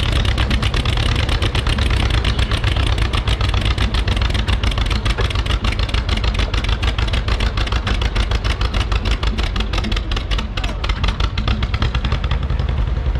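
Tractor engine idling with rapid, even exhaust beats.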